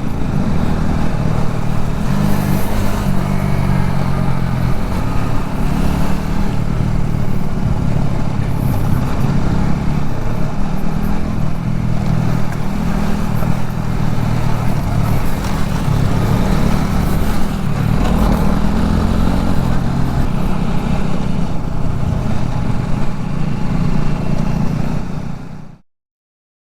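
Motorcycle engine running under way, its pitch wavering a little with the throttle. The sound cuts off suddenly near the end.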